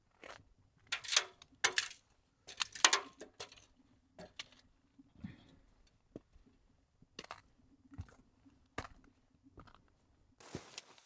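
A hiker's footsteps crunching irregularly on a snowy mountain trail, with small clicks and knocks between steps. The loudest steps come about a second in and again near three seconds in.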